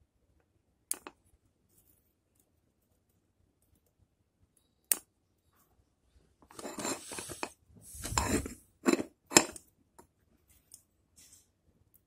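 Bonsai scissors snipping twigs: a few sharp single snips spread apart, with about two seconds of rustling handling before two more quick snips near the end.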